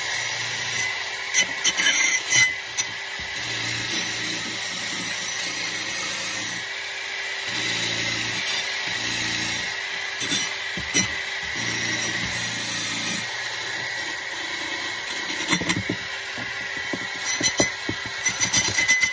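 Drill-driven wire wheel brush scouring rust off a corroded steel trowel: a steady whirring hiss with a high whine, the motor's hum coming and going in stretches as the trigger is eased, and scattered sharp knocks where the blade catches on the wheel, more of them near the end.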